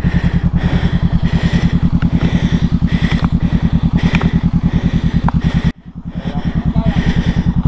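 Motorcycle engine running at low, steady revs with an even pulsing beat; the sound cuts out suddenly nearly six seconds in and the pulsing comes back within a moment.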